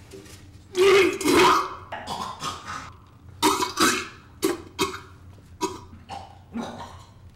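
A man's loud fit of hacking throat noises, coughing and gagging, the two biggest about a second in and a run of shorter ones after.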